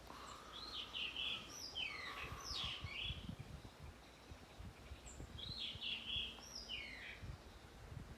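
A songbird singing two similar phrases of quick whistled notes, the second about five seconds after the first, with faint low thumps beneath.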